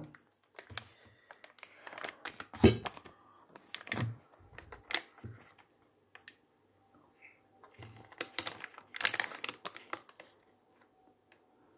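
Foil-lined ice cream wrapper crinkling and crackling in irregular bursts as a fork digs into the ice cream, loudest about three seconds in and again near nine seconds.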